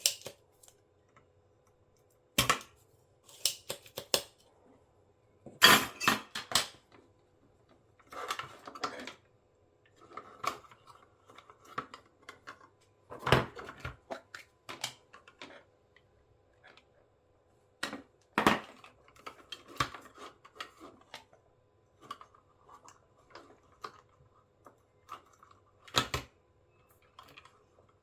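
Hand tools and small parts handled on a workbench: scattered sharp clicks, taps and knocks, several loud ones, with quieter rustling and scraping between them.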